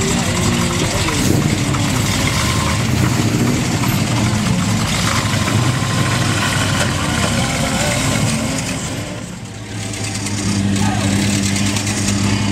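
Car engines running as cars pull away. The sound dips briefly about nine and a half seconds in, then one engine idles steadily, with voices in the background.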